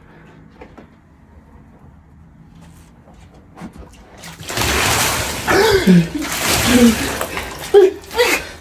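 Near quiet, then about four seconds in a plastic bucket of cold water is dumped over a person in bed with a loud splash onto the bedding, followed by the soaked sleeper's startled yells.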